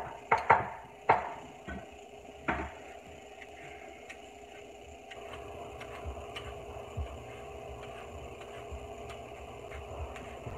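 Kitchen counter work: a quick run of sharp knocks and clatters in the first few seconds as food or utensils are handled on the counter, then a steady low hum with a few faint ticks.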